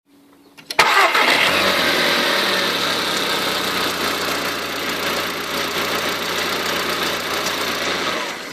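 Volkswagen Polo GTI engine cranking and catching on a cold start, then running with a loud, unusual noise on top that stops about eight seconds in, leaving a much quieter idle.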